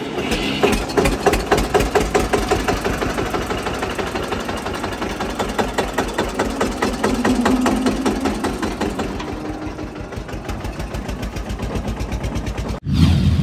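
Eicher 242 tractor's diesel engine running with an even, rapid beat of firing pulses. Near the end the sound cuts off abruptly and a deeper, louder rumble starts.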